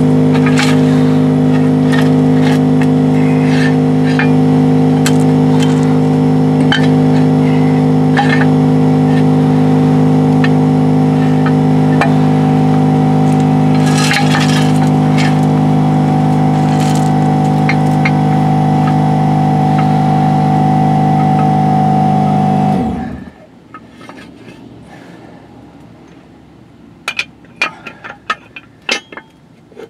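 A machine running with a steady, loud hum, which cuts off abruptly about 23 seconds in. A few light metallic clicks follow.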